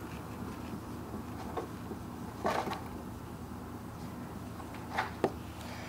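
Dry-erase marker writing on a whiteboard: a few short marker strokes, about a second and a half, two and a half and five seconds in, over quiet room tone.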